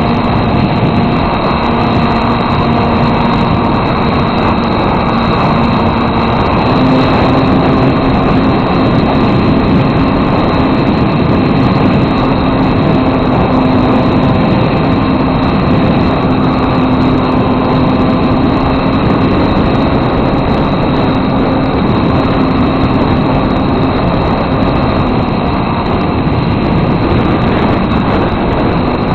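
Motor and propeller of a foam RC airplane, recorded by a camera mounted on the plane itself: a loud, steady drone. Its hum rises slightly about seven seconds in, as with more throttle, and eases back near the end.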